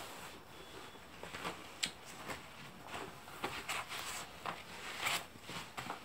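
Short, irregular rustles and soft taps of a school textbook's paper and covers being handled and lifted up.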